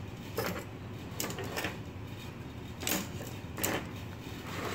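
Clear plastic blister-pack trays and small figure parts being moved around on a tabletop: about half a dozen short, light plastic clicks and knocks, spread unevenly over a few seconds.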